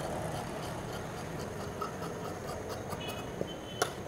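Tailor's scissors cutting through blouse fabric on a table: faint, irregular snips and clicks, with a sharper click near the end, over a steady low background noise.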